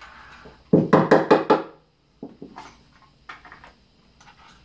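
Cordless drill run briefly for about a second, a loud ratcheting buzz, as the bit is changed to a 3/16-inch one or the pilot hole is re-bored. Light clicks and knocks of tool handling follow.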